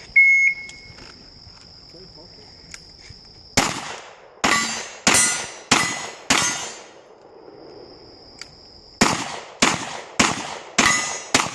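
A shot-timer beep, then ten revolver shots in two strings of five: five spaced about half a second apart, a pause of about two and a half seconds, then five more at the same pace. Insects chirp steadily in the background.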